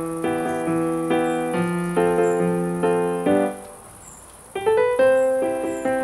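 Background music: a gentle piano melody of struck notes and chords that stops for about a second midway, then resumes.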